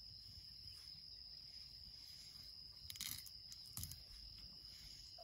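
Steady high-pitched chirring of insects in grassland, with two brief rustling crackles about three and four seconds in.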